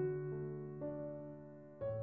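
Soft background music of slow, sustained keyboard chords, the sound fading just before a new chord comes in near the end.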